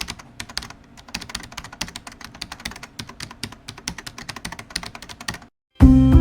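Rapid, irregular clicking of typing on a computer keyboard, stopping about five and a half seconds in. Music starts just before the end.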